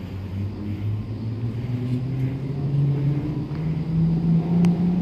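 Cable drive of a POMA cable-driven airport people mover running as a train comes in: a low mechanical hum that rises steadily in pitch and grows louder. There is a single sharp click near the end.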